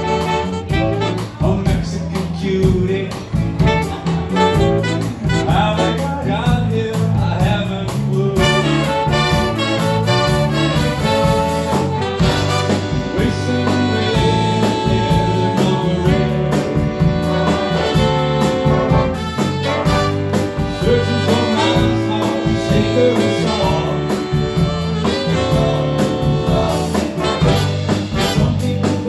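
Big band playing jazz live: saxophones, trombones and trumpets over electric bass and drum kit, with a male vocalist singing.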